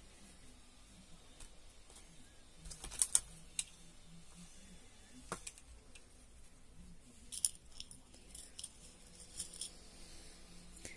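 Quiet handling sounds: a few scattered light clicks and clinks as small plastic toy eyes are picked from their plastic box, with faint room tone between them.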